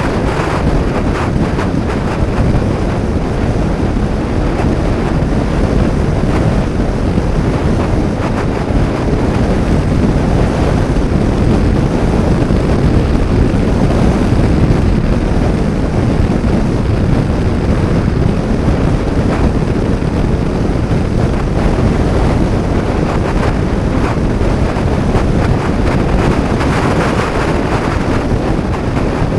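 Heavy wind buffeting on the microphone of a helmet or action camera on a moving Honda PCX 125 scooter, a steady rushing noise that covers the scooter's engine and road noise.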